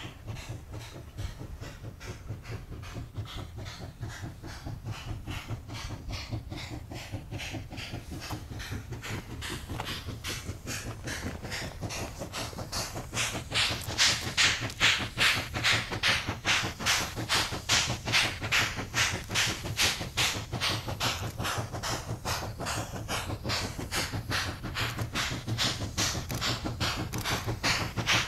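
Steam locomotive exhaust chuffing hard in a steady rapid beat as it works a loaded coal train. The beats grow louder and sharper about halfway through as the engine draws nearer.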